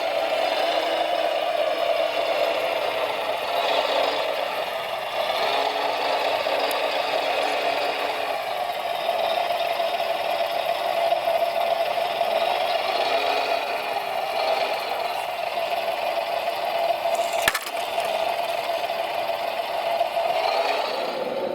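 Electric motors and gear trains of radio-controlled model construction vehicles whining steadily, with light rattling, their pitch shifting a little as they work. A single sharp click comes toward the end.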